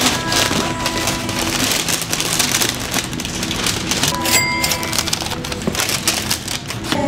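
Tissue paper rustling and crinkling as it is folded and pressed down inside a cardboard shoebox, a dense run of crackles.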